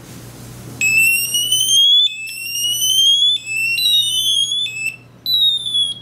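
Gozens bike alarm's electronic siren sounding about a second in, just after the battery goes in during pairing mode: two long rising sweeps, then several shorter falling ones with a brief gap near the end.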